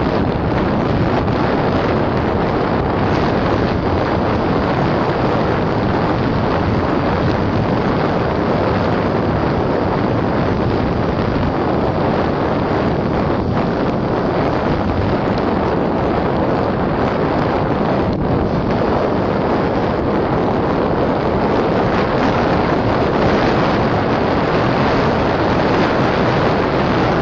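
Steady wind rushing over the microphone of a camera moving at speed down a road, with no engine tone heard.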